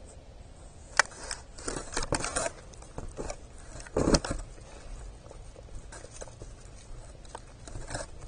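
A young buck deer feeding at a wooden platform seed feeder close to the microphone. There is a sharp knock about a second in, crackly rustling and crunching around two seconds, and a louder scraping crunch about four seconds in as it pushes its muzzle into the seed tray, then faint scattered ticks.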